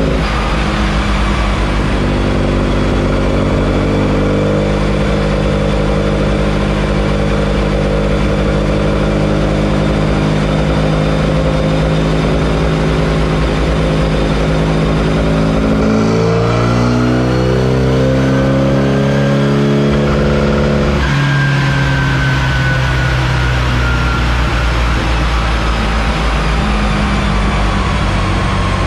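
Race-tuned Swiftune 1380 Mini A-series engine running under load on a rolling road, held at steady revs with stepped changes in pitch and a quick climb about two-thirds of the way in. After that the revs ease off and fall slowly, with a faint whine falling with them.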